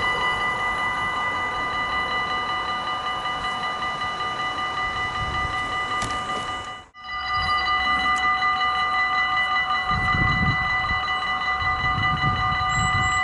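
Dutch railway level-crossing warning bells ringing rapidly and continuously while the crossing barriers move. The ringing breaks off for a moment about halfway, then goes on with low rumbling underneath near the end.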